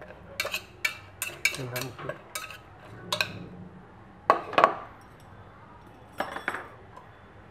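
Metal chopsticks clinking against a stainless steel pot while mixing pork hock in its marinade: a quick run of about a dozen sharp clicks over the first three seconds. Two louder knocks follow just after four seconds and a last pair of clinks near six seconds as the chopsticks are tapped and set down.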